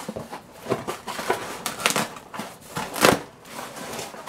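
Cardboard shipping box being opened by hand: tape pulled loose and the flaps pulled open. A run of irregular scrapes, rips and crinkles, the loudest about three seconds in.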